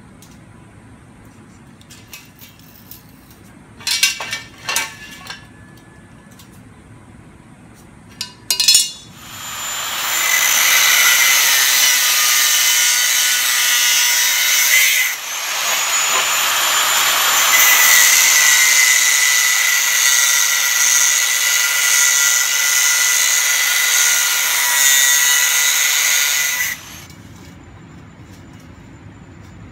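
Corded angle grinder with a cut-off wheel cutting through 1.5-inch steel tubing: a loud, steady grinding whine that starts about nine seconds in, dips briefly partway through and cuts off suddenly after about seventeen seconds. Before it, a few sharp knocks as the tubing is handled.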